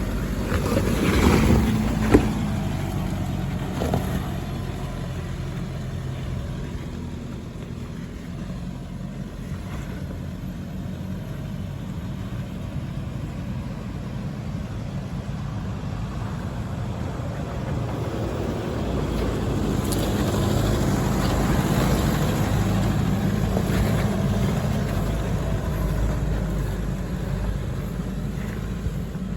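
Four-wheel-drive vehicle's engine working up a steep, rough, slippery climb, with a few sharp knocks in the first few seconds and the engine pulling harder and louder from about two-thirds of the way through.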